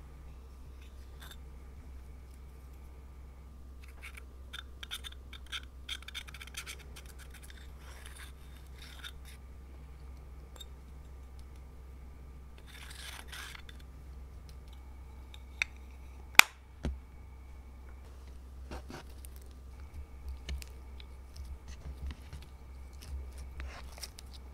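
Green pressed eyeshadow being scraped and crumbled out of a plastic compact: bursts of crisp scratching and crackling, with one sharp click past the middle as the loudest sound. Softer, sticky crackling clicks follow near the end, over a steady low hum.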